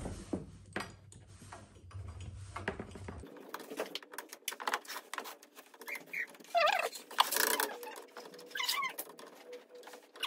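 Metal clicks and ticks of a wrench working a threaded brass fitting on a copper water line. Several short, wavering high-pitched squeals come in about six seconds in.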